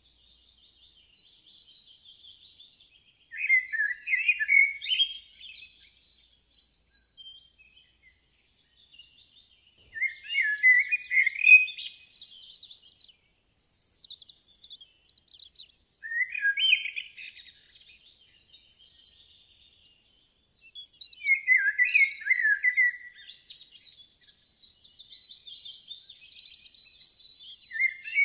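A bird singing outdoors: loud, busy song phrases come about every five or six seconds, with fainter chirping between them.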